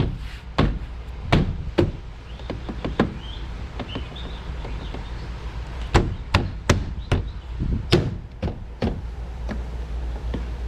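A series of about fourteen sharp knocks and clicks from hands working on a car door, irregularly spaced, bunched in the first couple of seconds and again from about six to nine seconds in, over a steady low hum.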